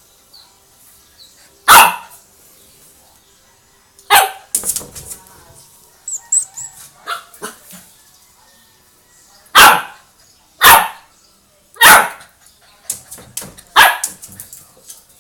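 Chow chow barking: about six loud single barks spaced a second to several seconds apart, with softer short vocal sounds between them.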